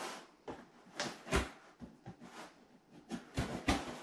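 Knife slitting the packing tape on a cardboard box: short, scratchy rasps and light cardboard knocks, coming faster over the last second.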